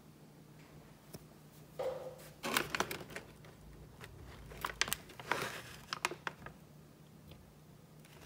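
Plastic SmartBones Twist treat pouch crinkling as a hand rummages inside it and pulls out a stick, in several bursts of crackling and rustling after a quiet first couple of seconds.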